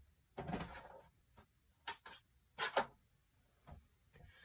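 A brief rustle, then a few light separate clicks: the cutting plates of a die-cutting machine being taken apart by hand and a thin metal heart-border die and the freshly cut paper strip lifted off.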